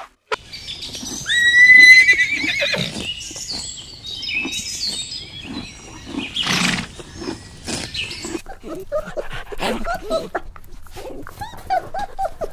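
Horse whinnying: one long, loud, wavering neigh about a second in, followed by shorter calls and a snort-like burst of breath.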